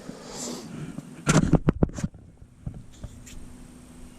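Close handling noise: a soft rustle, then a quick cluster of several sharp bumps and scrapes about a second in, after which a faint steady hum sets in.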